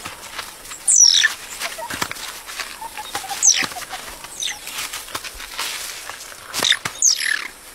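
Banded mongoose rustling and scratching through grass as it forages, with faint clicks. High whistled calls, each falling quickly in pitch, come about a second in, twice around three and a half seconds, and again near the end.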